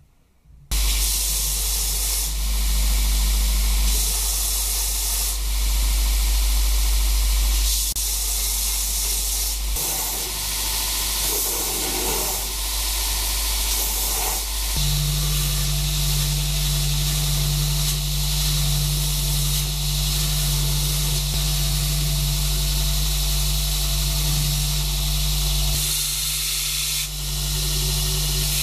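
Belt grinder running with a steady loud hiss as the wooden handle of a cleaver is sanded against the belt. A lower hum joins about fifteen seconds in.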